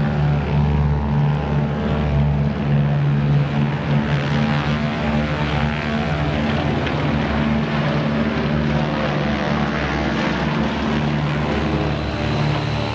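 Boeing B-17 Flying Fortress's four Wright Cyclone nine-cylinder radial engines running steadily as the bomber makes a low pass, a deep multi-toned propeller drone. It turns rougher and noisier about halfway through as the aircraft passes closest, then the steady engine note returns as it moves away.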